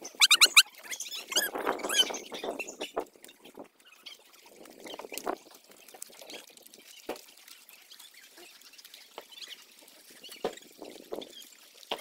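Puppies giving a quick run of short, high-pitched yelps in the first second, followed by irregular rustling and scattered clicks.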